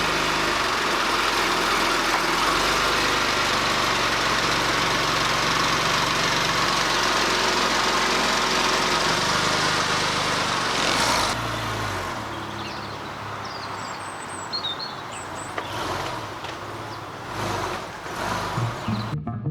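Porsche 996's flat-six engine running with the car under way, under a loud steady rush of road and wind noise. About eleven seconds in the rush drops away and the sound becomes quieter.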